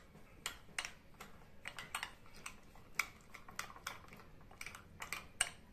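Metal spoon clinking and scraping against a glass bowl while stirring coarse semolina and curd together, a string of light, irregular clicks.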